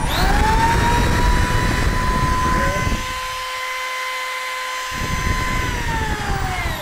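A DeWalt DW236 corded 1/2-inch drill's 7.8-amp motor spins up and runs at a steady full-speed whine, its trigger locked on with no finger on it. Near the end the whine falls as the drill winds down.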